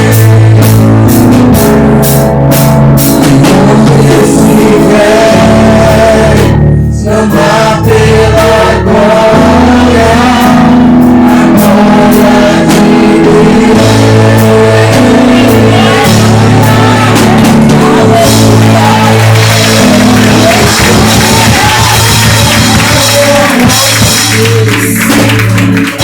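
Live worship music: a band playing sustained bass notes under singing.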